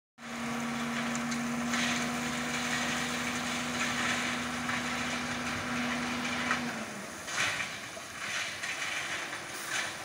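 Dump truck with its tipper bed raised, running with a steady hum that falls away and stops about seven seconds in. After that come irregular scraping and knocking sounds over a rougher background noise.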